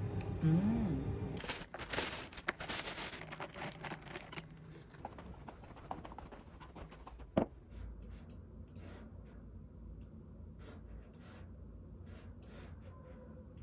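Light handling sounds of a glass of iced latte: a run of small clicks and clinks, with one sharp knock about seven seconds in. Sparse, faint laptop keyboard taps follow near the end.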